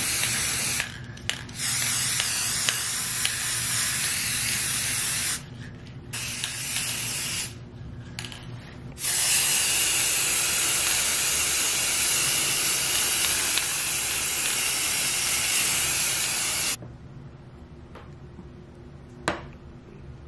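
Aerosol spray paint can hissing in repeated bursts: several short sprays, one of about four seconds, then a long spray of about eight seconds that cuts off suddenly. A single sharp click near the end.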